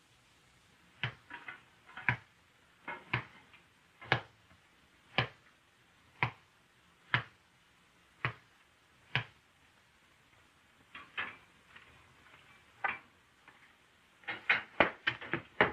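Sharp, dry knocks, about one a second for most of the stretch, then a pause, two more spaced out, and a quicker flurry near the end.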